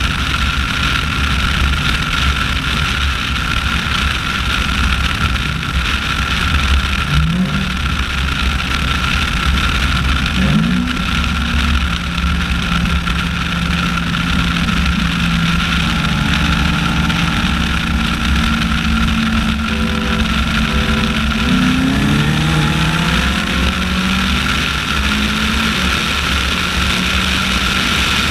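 A car driving at speed, with steady road and engine noise. The engine note rises briefly twice, about 7 and 10 seconds in, then holds a steady drone before shifting pitch again a little past two-thirds of the way through.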